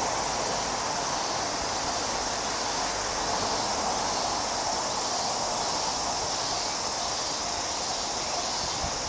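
Steady chorus of summer insects, an even, unbroken drone.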